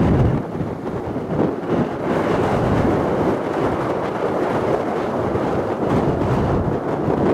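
Rolling, rumbling roar of an Airbus A350-900's Rolls-Royce Trent XWB jet engines as the airliner arrives, with some wind buffeting the microphone.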